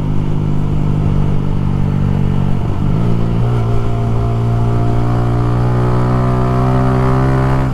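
Motorcycle engine running steadily while riding, with wind buffeting the microphone. About three seconds in the engine note dips briefly, then picks up and climbs slowly.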